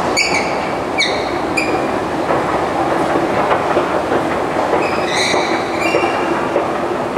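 Escalator running: a steady rattling rumble from the moving steps, with short high squeaks, three in the first two seconds and several more around five to six seconds in.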